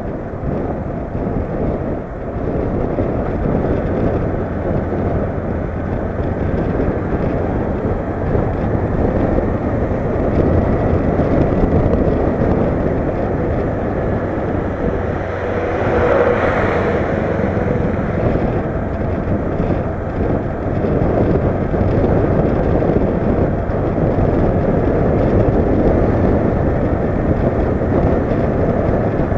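Wind rushing over an action camera on a Honda CB500X motorcycle riding downhill, with the parallel-twin engine running steadily underneath. A short louder whoosh comes a little past halfway.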